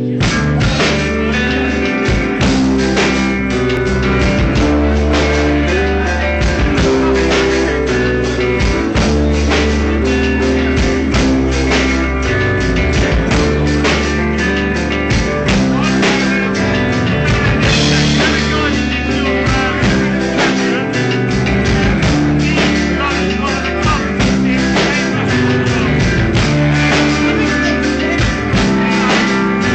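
A live rock band playing loud, with electric guitars over bass and drums. The drums and bass come in at the very start.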